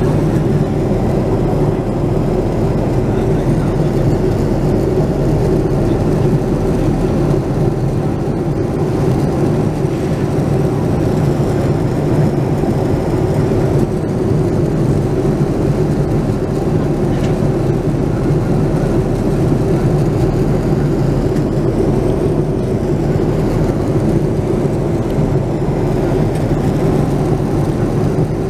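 Steady cabin noise inside a Boeing 787-9 Dreamliner at cruise altitude: an unbroken low rumble of engines and airflow.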